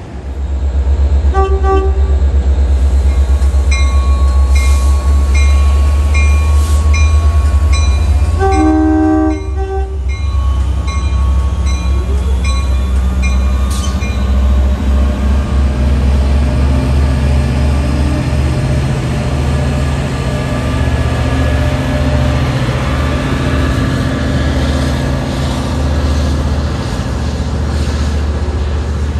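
Long Island Rail Road DE30AC diesel locomotive passing with its bilevel coaches: a heavy steady engine and wheel rumble, a short horn blast about a second and a half in and a longer one around nine seconds, and its bell ringing about one and a half times a second between them. In the later part the rumble turns into a steadier rolling roar of the coaches going by.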